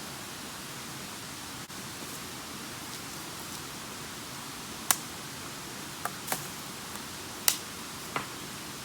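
Steady rushing hiss of a mountain stream, with about five sharp clicks or snaps in the second half.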